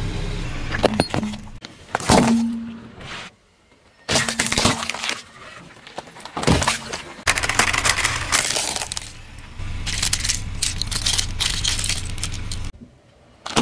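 Car tyres rolling over and crushing small objects in a run of short clips: ceramic teabag rests cracking and breaking with sharp snaps, then other items crunching and breaking under the wheel in longer stretches of crackling.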